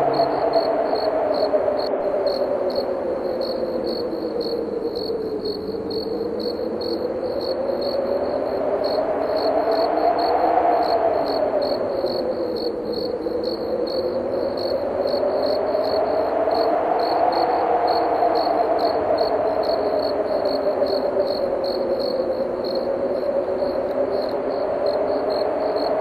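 Crickets chirping in a steady, even pulse over blowing wind, whose hollow tone slowly rises and falls in pitch in long swells.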